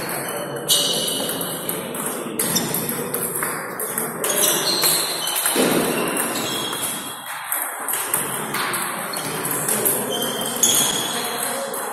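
Table tennis balls clicking off rubber paddles and bouncing on tables, irregular sharp pocks with a short ringing ping, from the match in play and from neighbouring tables.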